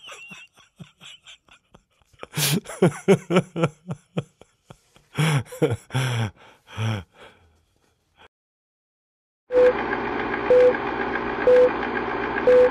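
A cartoon voice makes wordless vocal noises for several seconds. After a pause, an old film-leader countdown starts: steady projector-like rattle and crackle with a short beep once a second.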